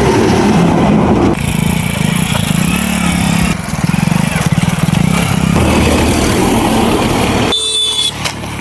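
An engine running close by, its low note shifting and pulsing in places. A brief high steady tone sounds near the end.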